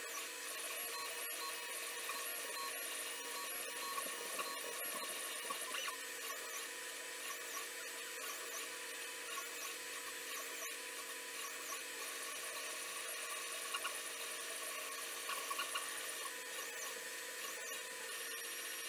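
FDM 3D printer running a print: the stepper motors whine in shifting pitches as the print head moves, over a steady hum from the hotend's cooling fan.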